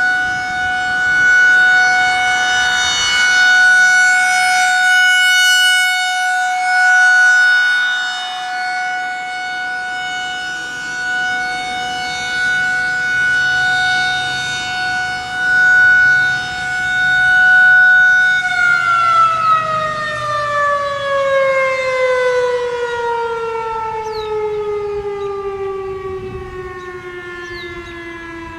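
Federal Signal 2001-SRN rotating electromechanical outdoor warning siren sounding a steady tone on a scheduled test, swelling and fading every few seconds as the horn rotates. About two-thirds of the way through it is shut off and winds down, the pitch falling steadily as the rotor coasts.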